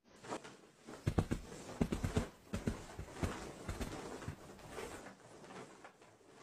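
An irregular run of soft thumps and scuffles: cats moving about and jumping on a blanket-covered bed. The thumps cluster from about a second in and thin out after about five seconds.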